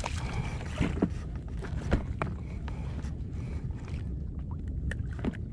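Sea water lapping and sloshing close to the microphone, with a few short clicks or small splashes.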